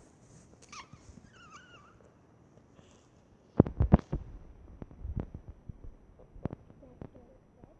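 Handling noise: a quick cluster of loud knocks and clatter about three and a half seconds in, then scattered lighter taps, with a faint wavering high-pitched squeak near the start.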